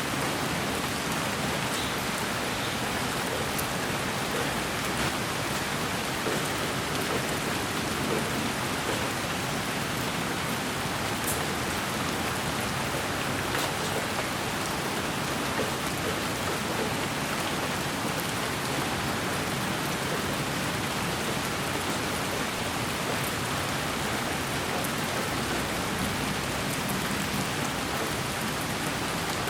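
Steady, rain-like white noise for lulling a baby to sleep: an even, unchanging hiss with a few faint ticks.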